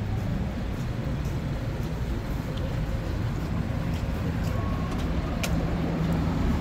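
Steady rumble of city street traffic, vehicles passing on a downtown street.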